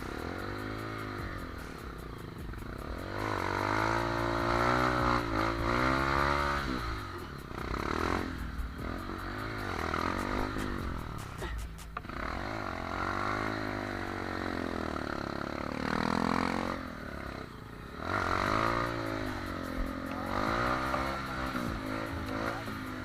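Trail motorcycle engines revving up and down over and over, the pitch climbing and falling every second or two.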